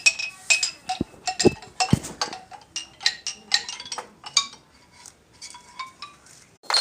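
Irregular light clinking and tapping: a couple of dozen quick strikes on hard objects, each with a short ringing tone, thicker at first and thinning out, with three duller knocks between about one and two seconds in.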